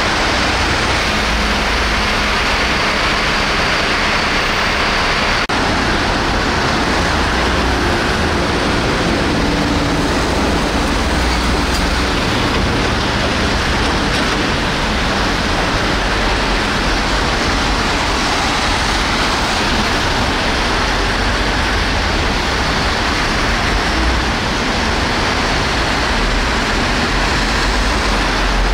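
Steady road traffic noise on a busy city street: a constant, even hum of passing vehicles and engines, with no siren.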